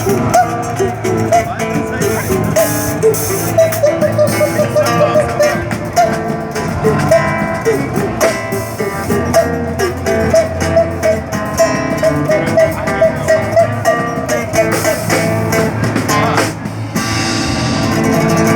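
A singer imitating a cuíca with her voice: short, squeaky, gliding pitched calls repeated over and over in rhythm, over a samba groove with drums and guitar.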